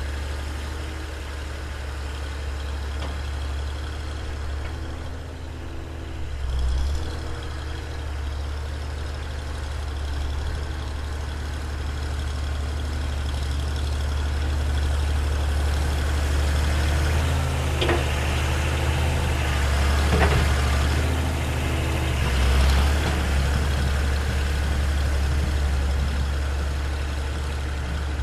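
Farm tractor engine running steadily under load as the tractor pushes snow with its front-loader bucket, getting louder and softer as it moves. Two sharp clanks a couple of seconds apart, past the middle.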